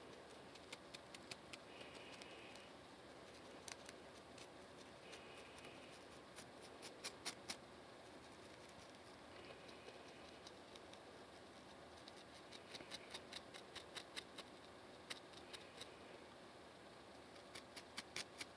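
Plastic fine-tooth comb scratching a dandruff-flaked scalp between braids, right at the microphone: runs of sharp, dry scratchy clicks in short bursts, loudest about seven seconds in.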